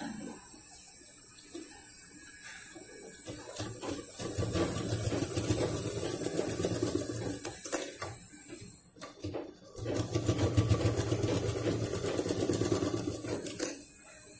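Sewing machine running, stitching through layered fabric in two runs of a few seconds each with a short stop between.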